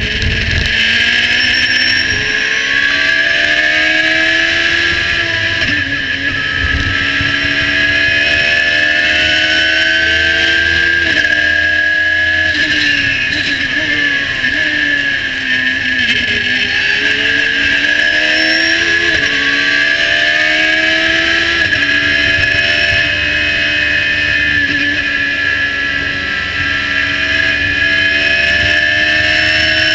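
Radical SR3 1500 race car's motorcycle-based four-cylinder engine at high revs from the cockpit. Its pitch climbs through the gears and drops sharply at each quick upshift, falls away through braking and downshifts in the middle, then climbs again, over a steady rush of wind.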